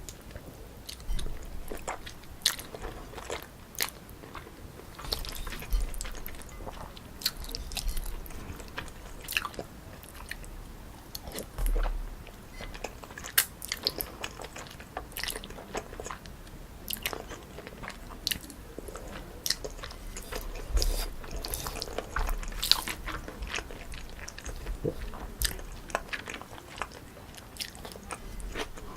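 Close-miked eating sounds: chewing and biting of chewy cold jjolmyeon noodles, with crisp crunches from crunchy toppings and many irregular wet clicks of the mouth.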